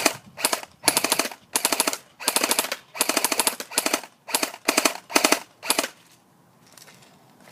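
SRC G36C airsoft electric gun firing short full-auto bursts, about ten of them in quick succession, emptying the last of the magazine. The firing stops about six seconds in.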